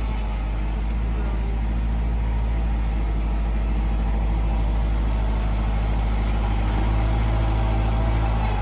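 Tractor engine running steadily at a constant speed, an even low hum with no change in pitch or loudness.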